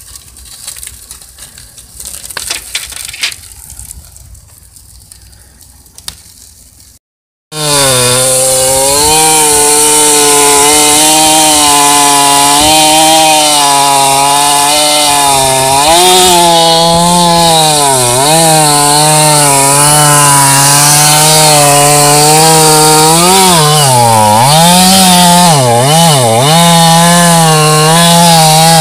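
A wood fire crackling quietly for the first several seconds. After a brief break, a gas two-stroke chainsaw runs at full throttle, cutting through a large log, its engine note dipping and recovering several times under load, most often near the end.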